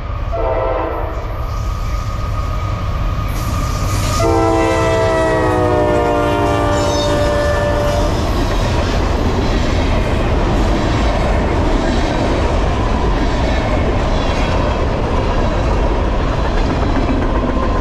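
Norfolk Southern freight locomotive's air horn sounding a chord: a short blast of about a second, then a few seconds later a long blast of about four seconds whose pitch drops slightly as the locomotives pass. After it, the trash train's loaded cars roll by with a steady rumble and clatter of wheels on the rails.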